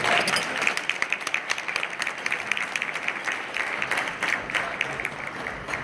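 Audience applauding, a dense patter of many hands clapping, loudest at the start and easing off slightly.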